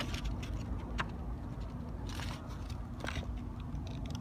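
Faint handling noises: a sharp click about a second in, a short scraping rustle a little after two seconds, and a few light ticks near three seconds, over a low steady hum.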